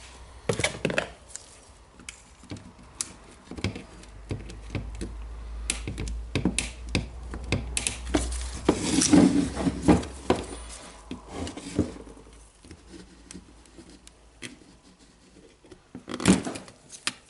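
Screwdriver tip clicking and scraping against the plastic brush holders and housing of a Hitachi DH28PCY rotary hammer's motor while the carbon brushes are pried out: a scatter of small irregular clicks and knocks, with a louder clatter about nine seconds in and again near the end.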